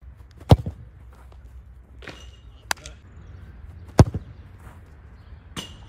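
Two sharp thuds of a football being struck hard, about half a second in and again about four seconds in, each followed by a couple of lighter knocks.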